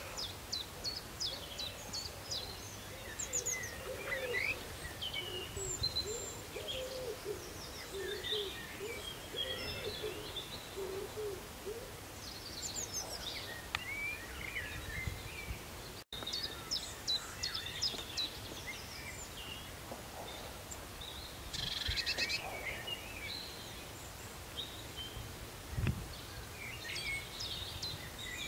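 Wild birds singing in a chorus of chirps and trills, with a lower, repeated call through the first half.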